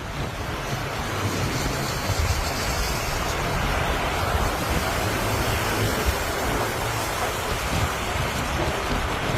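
Strong wind rushing steadily, with gusts buffeting the microphone in an uneven low rumble.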